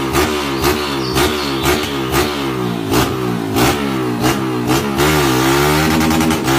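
Honda CG 160 Start's single-cylinder four-stroke engine through a Roncar aftermarket exhaust, revved hard against the rev limiter: the note climbs and cuts out about twice a second, with a sharp crack at each cut. About five seconds in it settles into a steadier held rev that dips briefly and picks up again.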